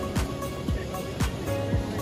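Background music with a steady beat of deep, falling kick-drum hits and sharp percussion strokes.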